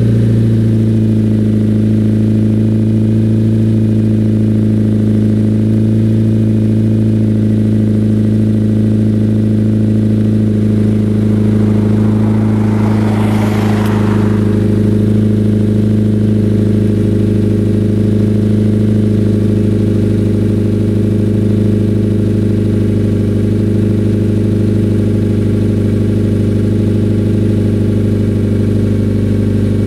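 2014 Scion FR-S's flat-four boxer engine idling steadily through a Borla straight-through, header-back exhaust, warming up after a cold start. A brief rush of hiss comes about twelve to fourteen seconds in.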